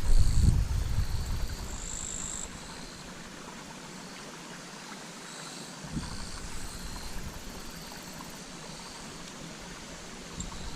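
Wind buffeting the microphone with a loud low rumble for the first two seconds or so, then a steady hiss of fresh water flowing into the stream, with a faint high-pitched chirring coming and going.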